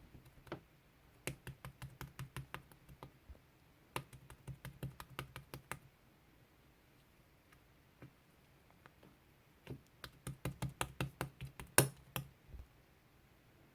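Quick clicking taps in three runs of about four to five a second, with short pauses between and a few lone taps.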